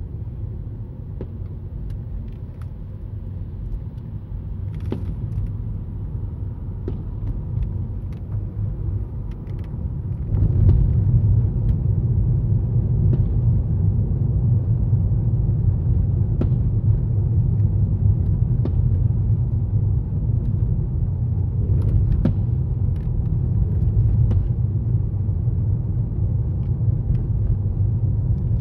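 Road and drive rumble of a moving Toyota Estima heard inside its cabin, steady and low, growing louder about ten seconds in as the car picks up speed. A few faint clicks run through it.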